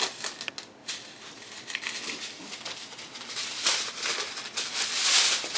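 Small plastic bags of diamond-painting drills crinkling and rustling as they are handled, with a few light clicks of the drills inside.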